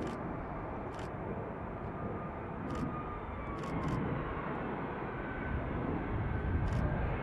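Airbus A320neo's jet engines running at high power during a rejected takeoff run on the runway, a steady rumbling roar that grows louder near the end.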